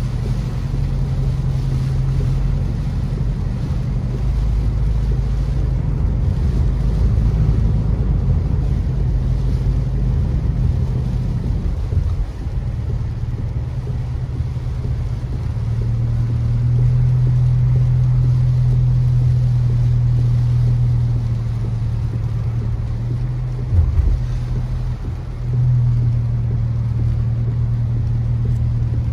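Car driving on a rain-soaked road, heard from inside the cabin: a steady low engine hum with road noise from the tyres on the wet pavement. A brief thump comes near the end.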